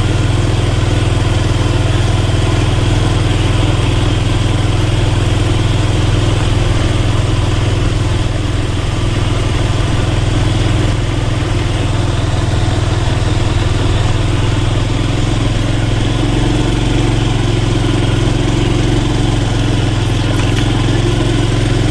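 Motorbike engine running steadily at low speed, with an even, unbroken drone.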